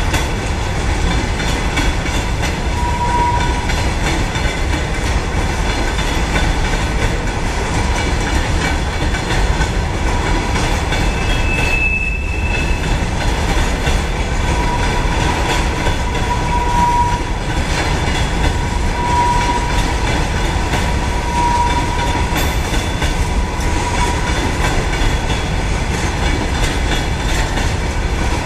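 Freight train of covered hopper wagons rolling past with a steady, loud rumble of wheels on rail. Brief high wheel squeals cut through several times, mostly in the second half.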